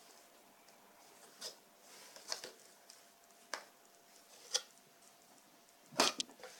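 Foam packing peanuts and a small cardboard product box handled by hand: five short scratchy rustles a second or so apart, the loudest near the end with a dull low knock in it.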